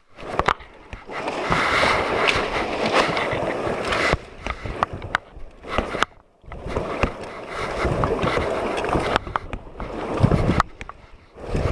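River water splashing and sloshing around a raft, a dense rushing noise with small knocks, cut off briefly several times.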